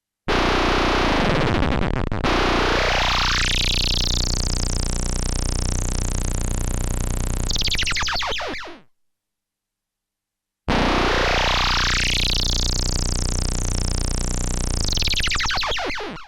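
Analog-synthesizer warp sound effect, played twice. Each time a low steady rumble sits under a pitch that sweeps steeply upward over a few seconds to a high warbling tone, then cuts off after about eight seconds. The first pass dips in pitch before it rises.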